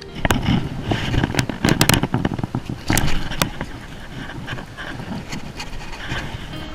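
Handling noise on jetty rock: irregular scrapes, rubs and knocks as a fly rod and reel and a fluke are picked up off the stone, with clothing rustling close by. The knocks and scrapes are busiest in the first three seconds, then thin out over a steady low rush.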